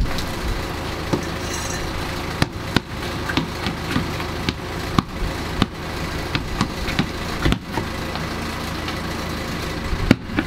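Basketball bouncing on wet paving stones: a series of irregularly spaced thuds as it is thrown up and dribbled, over a steady low background noise.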